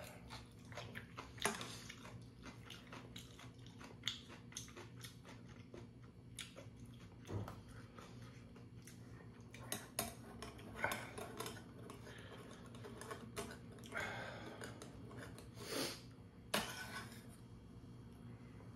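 Metal chopsticks and a spoon clinking and scraping against a metal pot of ramyeon as noodles are stirred and lifted, with close chewing between the clinks.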